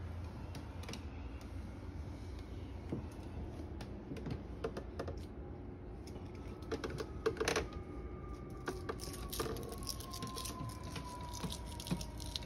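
Scattered light clicks and taps on a hardwood floor, from a cat's claws as it walks about. The clicks are busiest a little past the middle.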